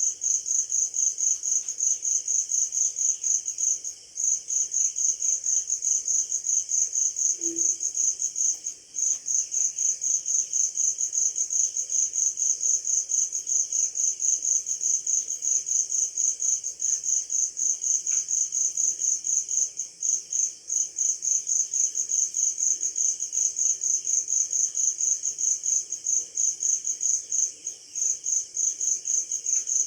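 Crickets chirping in a continuous high, rapid pulsing trill, breaking off briefly a few times before resuming.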